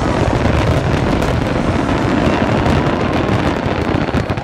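Fireworks finale: a dense, unbroken barrage of shells bursting together, with rapid bangs and crackling blending into one continuous din.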